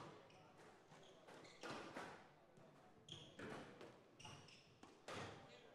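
Squash rally: the ball is struck by rackets and hits the court walls in several sharp, faint smacks roughly every one to two seconds. A few short squeaks of court shoes on the wooden floor come between the hits.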